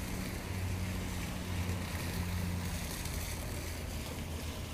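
Rainwater flowing along a street curb, a steady wash of running water, over a steady low hum.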